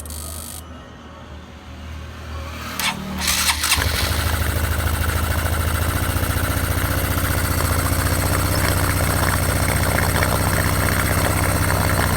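Honda Biz 125 single-cylinder motorcycle engine, freshly rebuilt, starting after a few clicks about three seconds in and then running at a steady idle.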